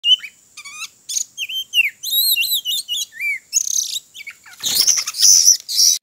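Oriental magpie-robin (kacer) calling: a run of quick, swooping whistled notes, turning in the second half to harsher, scratchy calls, with a thin steady high tone behind the first half.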